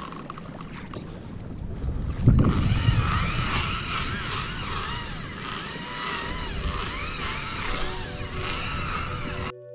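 Spinning reel's drag whining in a wavering, rising-and-falling pitch as a hooked fish pulls line off, over wind and water noise on the microphone.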